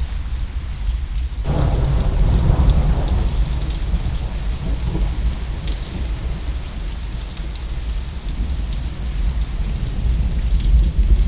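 Thunderstorm: rain falling steadily, with scattered drops ticking, and a roll of thunder that sets in suddenly about a second and a half in and rumbles away over several seconds.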